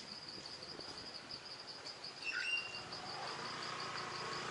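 Insects trilling in tropical jungle: a steady, evenly pulsing high trill. A short whistled bird note dropping in pitch sounds about two seconds in, and a lower steady tone joins near the end.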